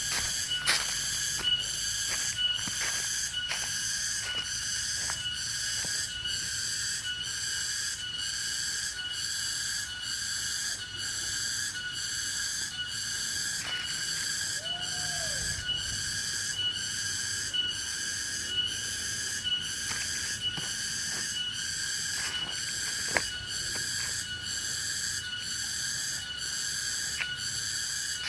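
A steady chorus of insects, high-pitched and pulsing evenly about one and a half times a second, over a constant whistle-like drone. Footsteps crunch and rustle on dry bamboo leaves now and then.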